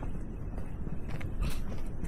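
Footsteps on a rocky hiking trail, a few steps in the second half, over a low steady rumble.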